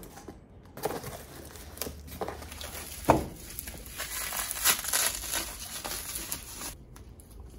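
Bubble wrap crinkling and rustling as it is handled and pulled out of a cardboard box, with many small irregular clicks and one louder knock about three seconds in.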